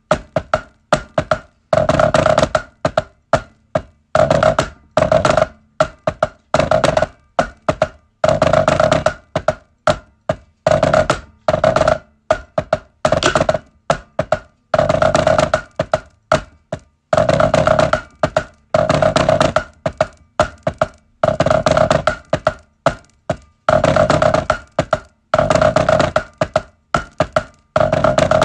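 Wooden drumsticks played on a drum practice pad: pipe band snare drumming practice, with quick flurries of strokes and rolls coming in bursts about a second apart. Each stroke has a short pitched ring from the pad.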